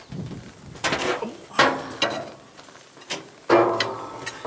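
Hand cross-cut file scraping across a cast-iron manifold mating surface in a few separate strokes, cutting away old gasket fused into the iron. The last stroke, near the end, is longer and carries a ringing tone.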